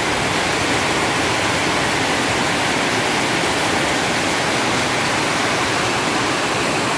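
Heavy rain falling in a downpour: a steady, even hiss with no breaks.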